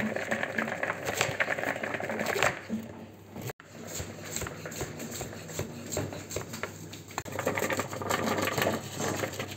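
Kitchen knife chopping red bell pepper on a wooden cutting board: a quick, uneven run of knocks as the blade meets the board.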